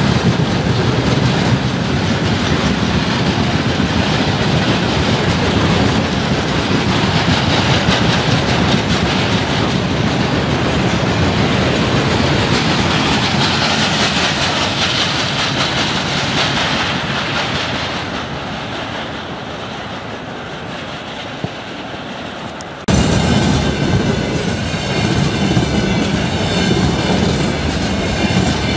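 Wagons of a long freight train, tank cars and then hopper cars, rolling past with a steady rumble and clatter of wheels on rail joints, easing off and getting quieter shortly before the end of the train. About 23 s in, the sound cuts abruptly to a container train passing at speed, louder and with a hissing clatter.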